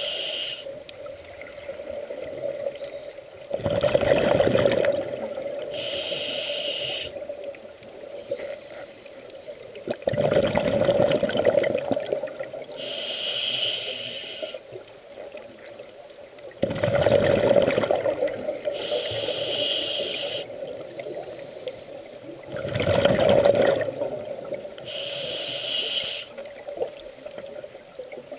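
Scuba diver breathing through an open-circuit regulator underwater: a short hissing inhale through the demand valve, then a few seconds later a louder burble of exhaled bubbles, repeating about every six and a half seconds, four breaths in all. The bubble bursts are the loudest sound.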